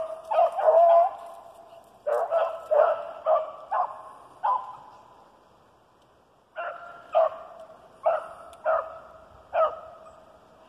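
Rabbit hounds barking in quick strings of barks: a few at the start, about six more from two seconds in, a short lull, then another six from about seven seconds. These are the hounds giving tongue on a rabbit's trail.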